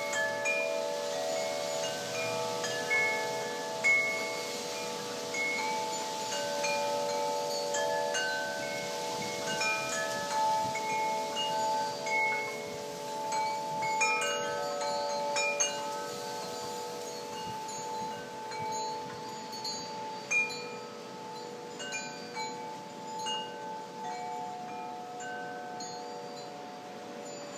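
Garden wind chimes, among them a hanging metal tube chime, rung by the wind: several long, overlapping tones struck at irregular moments and left to ring on.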